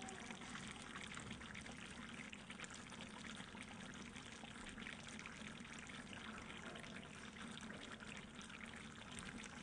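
Faint, steady sizzle and crackle of chicken pieces frying in oil in an open pressure cooker, the meat releasing its own juices.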